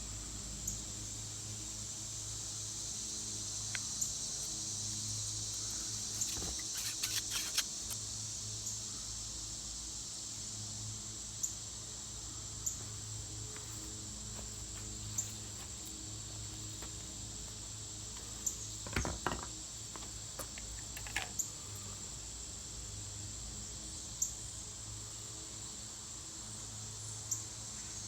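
Steady high-pitched chorus of insects such as crickets, with scattered short clicks and a few brief rustling, crackling handling sounds.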